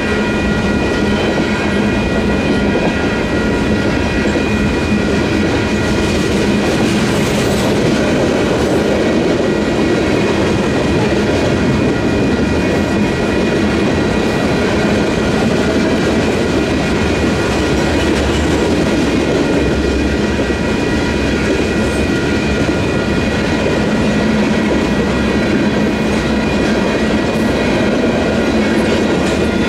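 Union Pacific manifest freight train rolling steadily through a grade crossing, its flatcars and covered hoppers clattering over the rails. The crossing's WCH electronic bells ring continuously while the gates are down.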